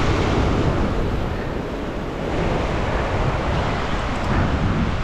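Ocean surf breaking and washing over sea rocks, swelling and easing, with wind buffeting the microphone.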